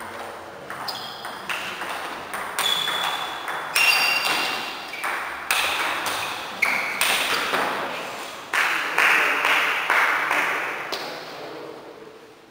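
Table tennis rally: the ball clicks sharply off the paddles and the table top in quick succession, two or three hits a second, each with a ringing echo in the hall. The hits stop near the end as the point finishes.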